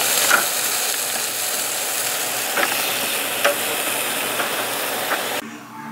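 Meat sizzling on a barrel grill, with a few sharp clicks of metal tongs as the pieces are turned. The sizzle cuts off suddenly near the end.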